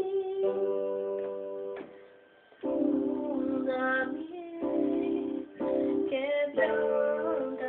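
A girl singing over an instrumental backing track of sustained chords. The music drops away briefly about two seconds in, then comes back.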